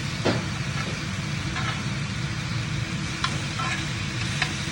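Meat sizzling as it fries in a pan, over a steady low hum, with a few light clicks scattered through.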